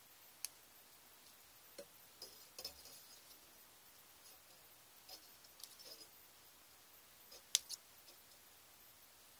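Faint, scattered clicks and ticks of small metal needle-nose pliers gripping and bending thin jewelry wire. The sharpest click comes about seven and a half seconds in.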